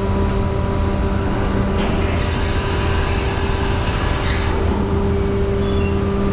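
Many motorcycle and scooter engines running together in the enclosed steel vehicle deck of a ferry, a dense steady drone with a humming tone. A hiss rises over it from about two seconds in and fades a little past four seconds.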